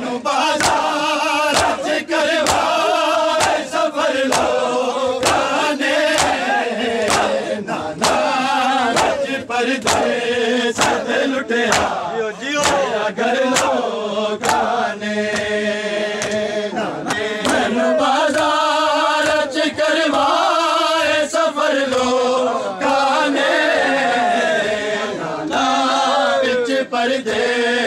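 A chorus of men chanting a Shia noha (Muharram lament) in unison, over a steady beat of open-hand slaps on bare chests (matam).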